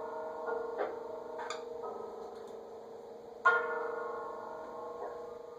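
A small bell struck several times at irregular intervals, each ring lingering and fading; the loudest strike comes a little past halfway.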